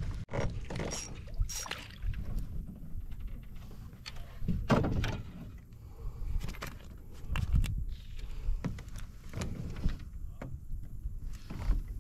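Scattered knocks, clicks and bumps of tackle and a fish being handled in a small one-man fishing boat, over a steady low rumble.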